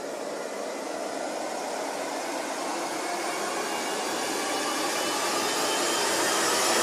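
A white-noise riser in the background music: a steady hiss that grows gradually louder.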